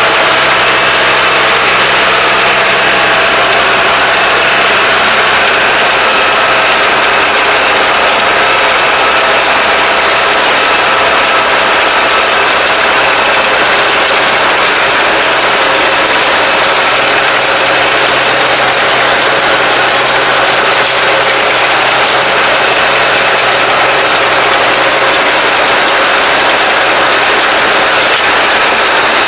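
Kubota semi-crawler tractor's diesel engine running steadily while it tows a round baler taking in rice straw, the engine and baler machinery making a loud, constant mechanical din with a steady hum.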